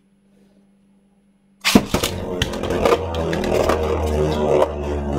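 Near silence, then, about a second and a half in, 3D-printed Beyblade Burst spinning tops are launched into a plastic stadium with a sudden clatter. They keep spinning against the stadium floor with a steady whirr and repeated clicks of contact.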